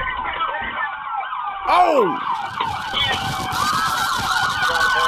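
Several police car sirens wailing over one another, their pitches rising and falling out of step, with one louder falling sweep about two seconds in.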